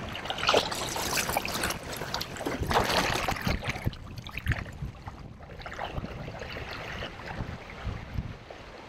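Water rushing and splashing beside a canoe under way; about four seconds in it drops to quieter lapping and washing as the canoe's wake rolls past.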